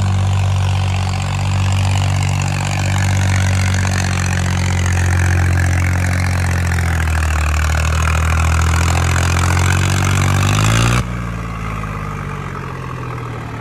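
Tractor diesel engine running steadily under load while pulling a disc harrow through ploughed soil. Its pitch sags about halfway through and climbs back. Near the end the sound drops suddenly to a quieter engine sound.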